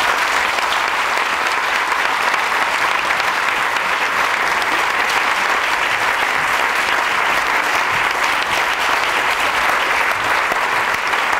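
Audience applauding: dense, even clapping from many hands that holds at a steady level.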